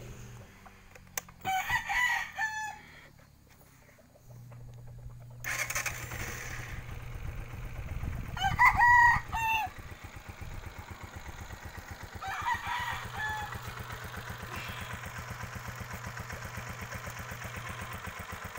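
A rooster crows three times, loudest in the middle, over a Honda TMX 125 Alpha's single-cylinder four-stroke engine, which comes in about four seconds in and runs at idle with an even, rapid putter.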